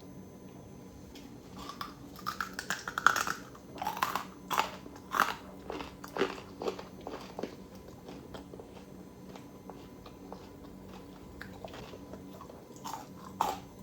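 Crisp crunches of someone biting into and chewing crispy fried chicken strips, in a quick run of bites over several seconds, a lull, then a few more crunches near the end.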